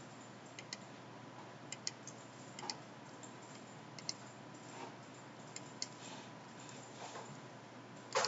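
Scattered clicks and soft taps from a computer mouse and keyboard, a faint steady electrical hum behind them, and one louder knock near the end.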